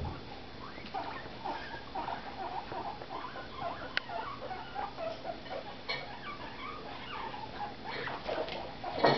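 Guinea pigs making short, repeated squeaking calls, several a second. There is a sharp click about four seconds in and a louder knock near the end.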